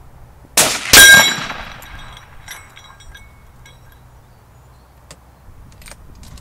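A .308 rifle shot from a CZ 557 Eclipse, followed about a third of a second later by the loud clang of the bullet striking a hanging steel plate target, which rings for about a second. A few faint clicks near the end.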